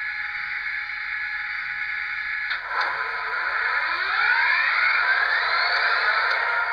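Recorded start-up sound of an EMD F40PH diesel from a LokSound sound decoder in an HO-scale model, played through a small 28 mm speaker. After a steady hum, the engine catches with a click about two and a half seconds in, its pitch rises as it spools up, and it settles into a steady run.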